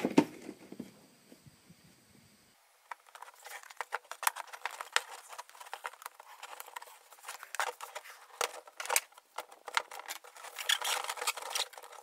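A knock right at the start, then, from about two and a half seconds in, duct tape being peeled off its roll and wrapped around the join between a tin can and a plastic bucket: a run of sharp, irregular crackles, densest near the end.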